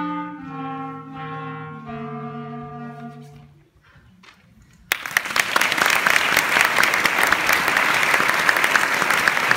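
Three clarinets play the last held notes of a piece, which die away about three and a half seconds in. About a second later an audience breaks into applause, louder than the music, and keeps clapping.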